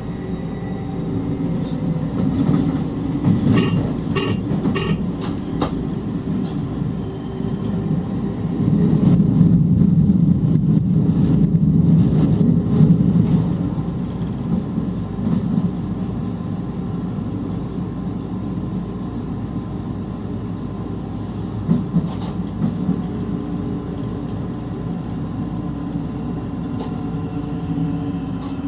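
Running noise of an NS stopping train heard from the driver's cab: a steady low rumble of wheels on rail that swells for a few seconds near the middle. Three short high-pitched beeps sound in quick succession about four seconds in, and a few sharp clicks follow later.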